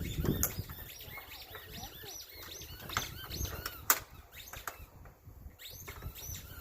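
Small birds chirping over and over in quick short calls, with a low rumble underneath. Two sharp clicks, about half a second and four seconds in; the second is the loudest sound.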